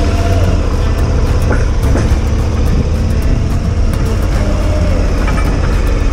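Adventure motorcycle engine running at a steady, low riding speed, with wind rumbling on the helmet-mounted microphone.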